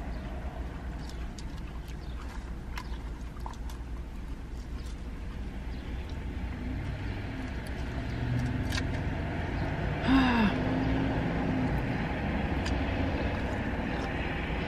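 Eating sounds, chewing salad, with faint clicks of a plastic fork on a plastic bowl, over a steady low car rumble. A short pitched sound stands out about ten seconds in.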